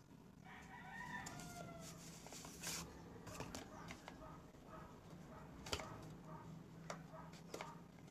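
A rooster crowing in the background, one drawn-out call that falls at the end, with shorter calls repeating around it. Over it come the rustle and a few sharp taps of a cardboard box being handled and opened.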